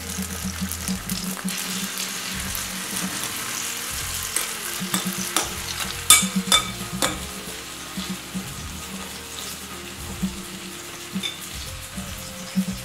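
Ground chicken and vegetable patties sizzling steadily as they fry in a little oil in a nonstick frying pan, with a few sharp clicks a little past halfway.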